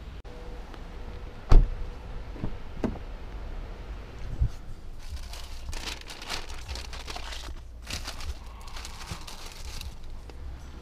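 Thin plastic bag crinkling and rustling as hands rummage in it, thickest in the middle of the stretch. A sharp thump comes about one and a half seconds in, with a few lighter knocks.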